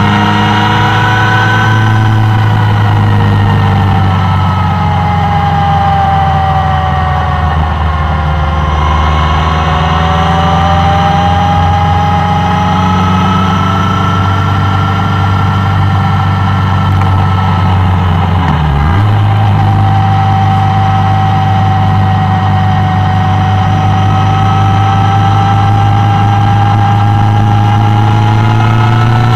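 Suzuki Bandit 1200's inline-four engine running under way, its pitch sinking and then rising again as the throttle is rolled off and back on. The note holds fairly steady, with a short break about two-thirds through, and climbs near the end.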